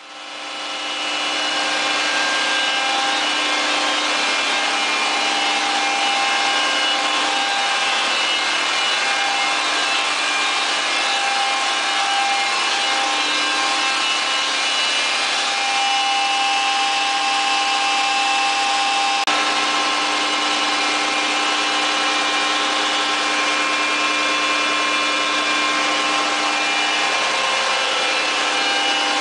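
Cummins QSV81-G natural gas engine of an 1100 kW generator set running steadily: a loud, even mechanical drone with several steady whining tones over it.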